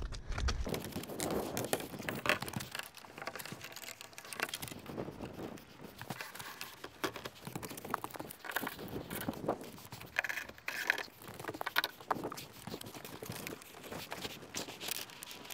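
Light, irregular clicks, taps and rustling from a solar panel being handled and fitted onto its roof mounting.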